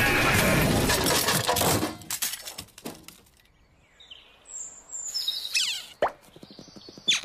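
Cartoon sound effects: loud driving music and car noise break off about two seconds in with a few sharp knocks as the car stops against a tree. Then come sparse short chirps and falling whistles, with two quick rising squeaks near the end.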